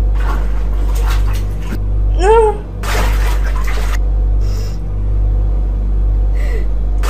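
A girl sobbing, with noisy gasping breaths and one pitched wail about two seconds in that rises then falls, over a loud steady low hum.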